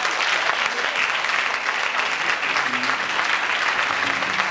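Congregation applauding, a steady dense clapping.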